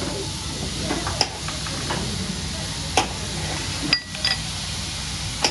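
Chicken, scallops and steak sizzling on a hot hibachi griddle, a steady hiss, with four or so sharp metal clinks and taps over it, the loudest about three seconds in.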